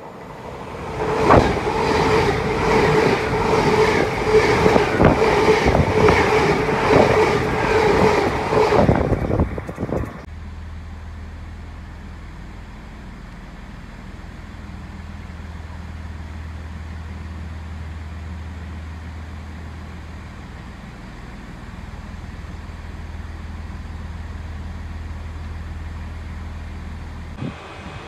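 A Great Western Railway Intercity Express Train passing close by, loud, with a steady engine note and an even clack of its wheels over the rail joints, about three clacks every two seconds. About ten seconds in the sound cuts off suddenly to a much quieter steady low hum.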